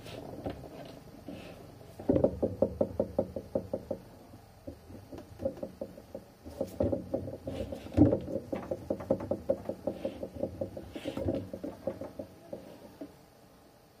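Rapid runs of light knocks, several a second, starting about two seconds in, easing off briefly, then picking up again and fading out near the end, with one sharper knock midway.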